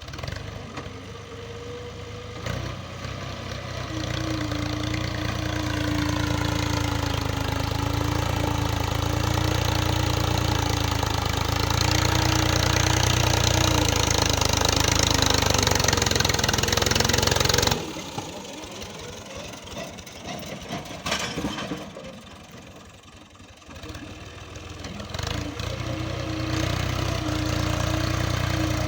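Heavy machinery's diesel engine running under load, with a steady whine held above the engine note. A little past halfway the sound drops off suddenly and stays quieter for several seconds, then builds up again near the end.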